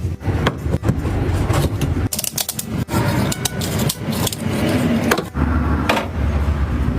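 Woodworking handwork: wood scraping and rubbing with many sharp knocks and clicks over a low steady hum.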